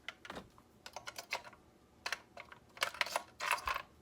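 Light plastic clicks and clatter of AA batteries being handled and pressed into an RC transmitter's battery compartment: scattered taps with two busier runs of clicks about two and three and a half seconds in.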